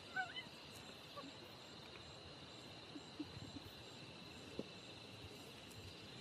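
Faint night-time insect chorus: a steady high trill with an even pulsing chirp above it. A short, faint wavering call comes near the start, and a few soft ticks follow later.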